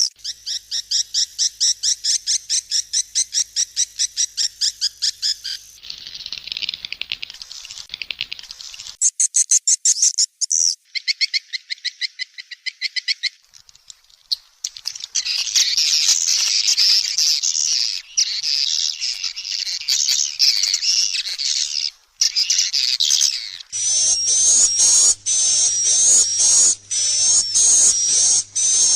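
Swiftlet calls: fast trains of high, rapid twittering chirps, several recordings that cut from one to the next every few seconds. A faint low hum runs under some of them.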